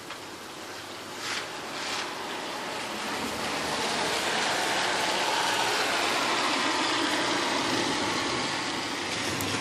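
A car passing on a wet road, its tyre hiss swelling to a steady rush and slowly easing off, over the sound of rain.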